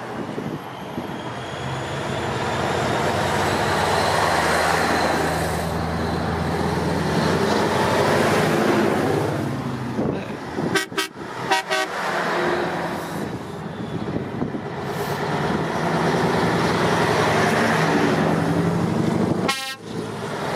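Classic Scania V8 trucks running and driving past, with horns tooting among them.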